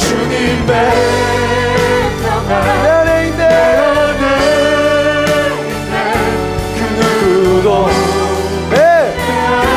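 A Korean contemporary worship song performed live: a lead singer over a band, holding long notes with vibrato.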